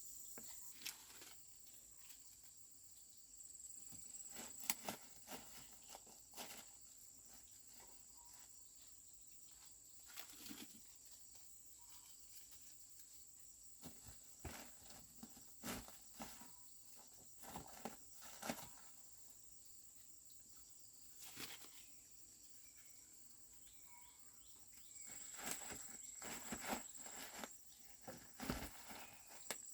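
Insects, crickets and the like, keep up a steady high-pitched drone that swells twice. Over it come scattered rustles, snaps and crunches of dry corn stalks, leaves and husks as ears of corn are picked.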